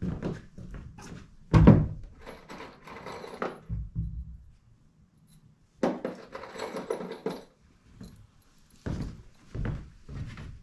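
Footsteps on wooden boards and a wooden plank door being swung and pushed shut by hand, making a series of wooden thunks and knocks. The sharpest knock comes about a second and a half in.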